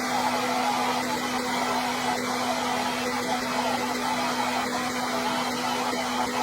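Hair dryer running continuously: an even rush of blown air over a steady low motor hum.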